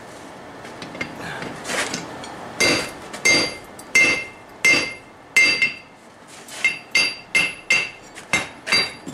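Hand hammer striking a steel bar against the anvil, about a dozen blows starting around two seconds in, each leaving a bright metallic ring, the blows coming a little faster near the end.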